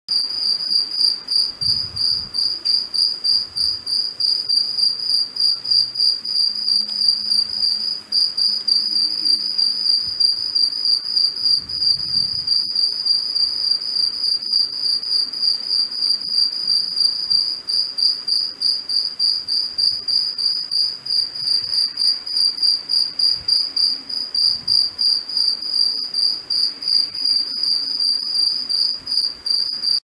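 Cicada singing: a steady, high-pitched buzz in a rapid, even pulse that barely breaks the whole time.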